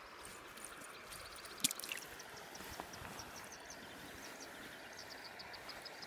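Creek water running steadily, with one sharp click about one and a half seconds in. Rapid short high chirps repeat in the background, mostly in the second half.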